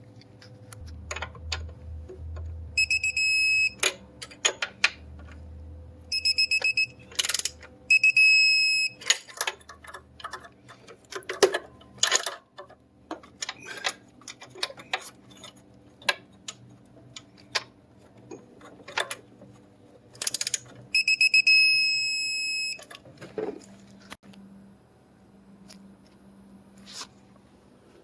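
Several bursts of a high, steady electronic beeping tone, the last and longest lasting nearly two seconds, mixed with many sharp clicks and knocks.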